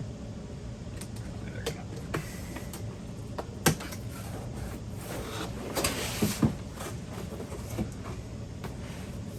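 Cardboard monitor box and its packing being handled and opened: scattered knocks and clicks, the sharpest about four seconds in, and a rustle of packing with a few knocks around six seconds in, over a steady low hum.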